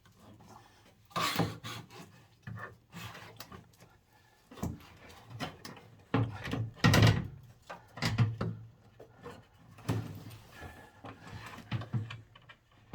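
Irregular knocks, clunks and scraping as a washing machine's drive motor is worked up into place from underneath and onto its mount. The loudest clunk comes about seven seconds in.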